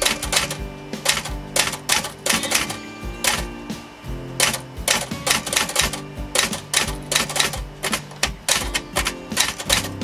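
Olivetti Underwood 21 manual typewriter being typed on in a typing test after its restoration: a quick, uneven run of type bars striking the platen, several keystrokes a second, with the carriage stepping along. Background music plays underneath.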